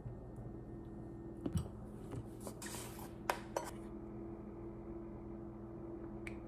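Kitchen utensil and jars handled on a counter: a few light clinks and knocks and a brief scrape, over a steady low hum.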